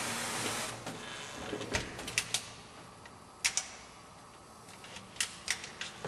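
A hiss that fades out about a second in, then a handful of sharp clicks and knocks as a hand-held wet polisher hung on a chain is handled against the wall.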